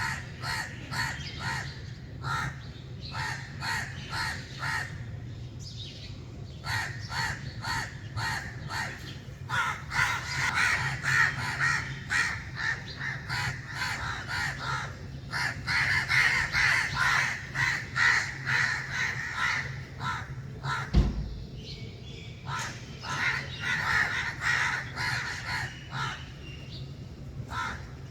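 A flock of crows cawing: many short caws overlapping in quick series, busiest in two stretches toward the middle. About three-quarters of the way through comes a single low thump, the loudest moment. A faint steady low rumble runs underneath.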